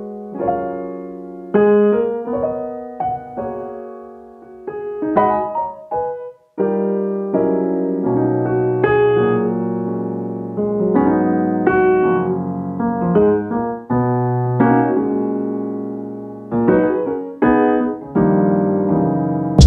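Background music: solo piano playing chords and notes that are struck and left to ring.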